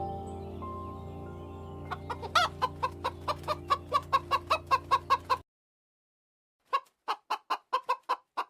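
A chicken clucking in a quick run of short, evenly spaced clucks, about four a second, starting about two seconds in. Background music plays under the first half and cuts off suddenly, and after a short pause the clucking goes on alone.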